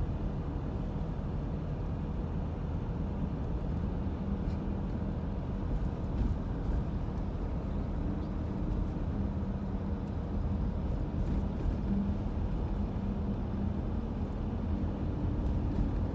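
Steady low rumble of a running vehicle engine, with a faint hum that comes and goes.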